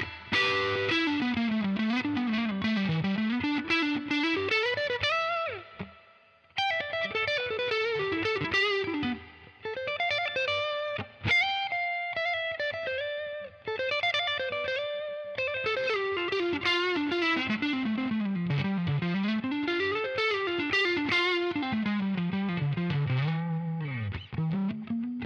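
Electric guitar, a Fender Stratocaster played through a UAFX Dream 65 Reverb amp pedal, playing single-note melodic lines that rise and fall, with a short pause about six seconds in.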